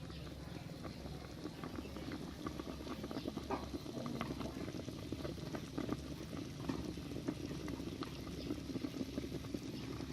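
A big pot of chicken curry boiling: a steady bubbling with many small irregular pops.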